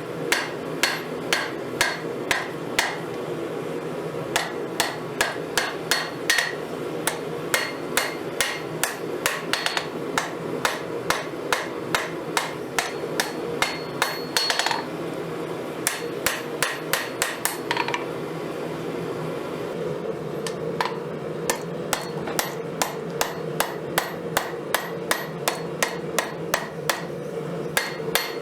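Hand hammer striking hot steel on an anvil, forging a knife blade from a broken Crescent wrench: runs of steady blows, about three a second, broken by a few short pauses, over a steady background hum.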